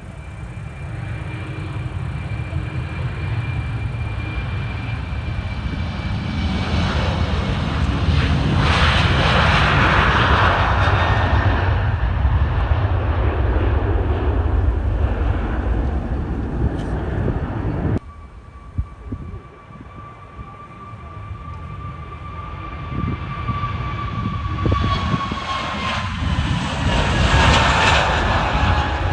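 Jet airliners passing overhead. First an Embraer E190's turbofans build to a pass about nine seconds in, with a steady whine that drops in pitch over a low rumble. After an abrupt cut, an Airbus A321neo's engines rise to a second pass near the end, their lower whine also falling in pitch.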